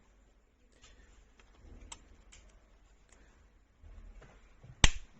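A few light, scattered clicks and taps, then one sharp, much louder click near the end.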